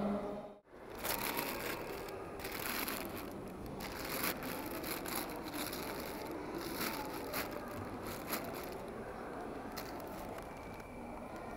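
Tissue paper rustling and crinkling inside a cardboard shoe box as a hand handles it, in irregular scratchy spells.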